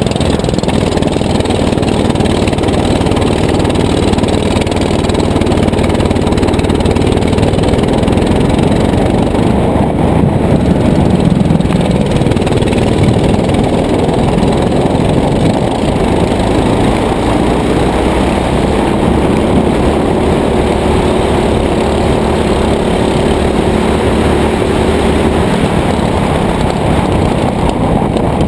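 Go-kart engine heard from on board, running continuously at speed. Its pitch rises and falls as the kart accelerates down the straights and slows for the corners, over a constant rush of noise.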